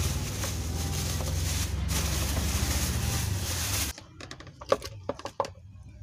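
Plastic bag rustling and crinkling as a table-fan motor is unwrapped, over a steady low hum. The sound cuts off abruptly about four seconds in, and a few sharp clicks and knocks of hard plastic and metal parts being handled follow.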